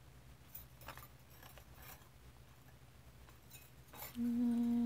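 Faint scratches and light taps of a drawing stick stroked across paper. About four seconds in, a woman hums one steady note.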